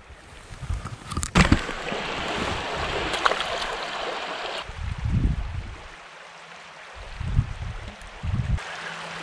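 Flowing creek water, with one sharp knock about a second and a half in. The water sound cuts off suddenly a little past the middle, leaving a few low rumbles.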